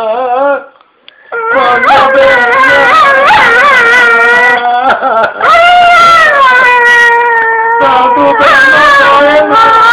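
Dog howling in long, wavering drawn-out notes after a brief pause about a second in, with one note held steady near the middle.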